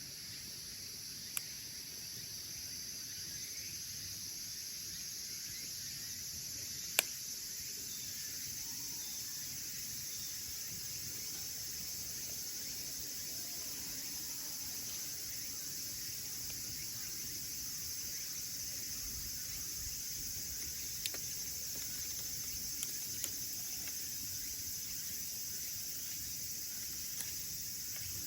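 Wood burning in a small wood stove, giving a few sharp single pops over a steady high-pitched hiss.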